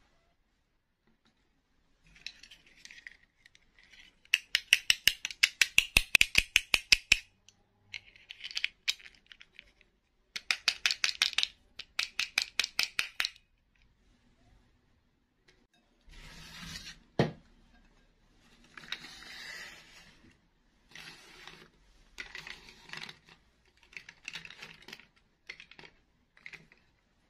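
Small plastic doll figures handled and set down in a bowl and on a table: runs of rapid plastic clicking and tapping, softer rustling scrapes, and one sharp knock a little past the middle.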